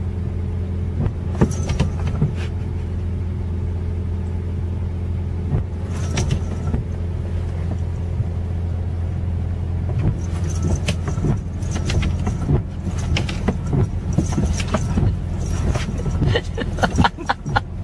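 Car engine idling, heard from inside the cabin as a steady low hum, with scattered clicks and knocks that come more often in the last few seconds.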